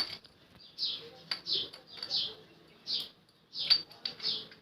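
A small bird chirping over and over, short falling chirps about every half second to second, with a few sharp clicks in between.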